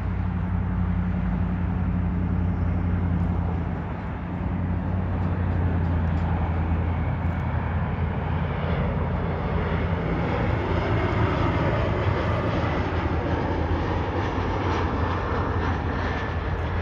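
Embraer E175 regional jet on landing approach, its two CF34 turbofans growing louder from about halfway through as a rushing roar with a faint, slowly falling whine, over a steady low hum.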